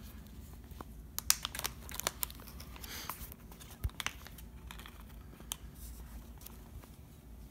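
Small clear plastic bag crinkling as it is opened and handled, with a run of sharp crackles in the first few seconds, then fainter rustling.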